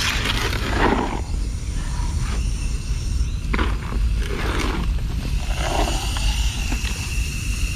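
A hoe scraping and chopping through wet concrete mix in a wheelbarrow in repeated strokes, while a hose nozzle sprays water into the mix, over a steady low rumble.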